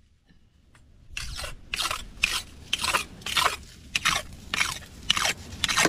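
Machete blade being sharpened on a flat stone: quick back-and-forth scraping strokes, about two to three a second, beginning about a second in.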